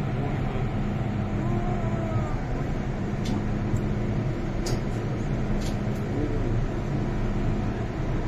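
Steady hum and rumble inside an MTR Island Line M-Train car, with faint gliding whine from the traction motors and a few light ticks in the middle.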